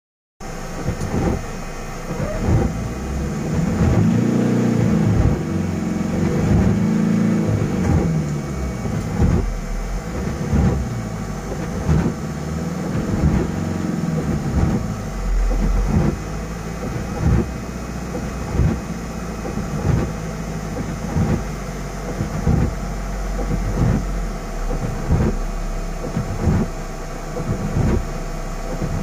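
A vehicle's engine running, its pitch rising and falling for a few seconds near the start, with repeated low thumps through the rest.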